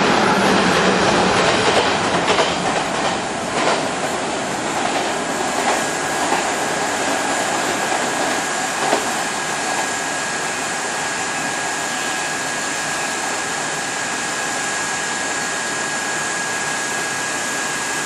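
A Hanshin commuter electric train running through the station at speed: loud wheel and running noise with a few sharp clacks over the rail joints in the first few seconds, settling into a steady rumble with a thin steady high tone from about five seconds in.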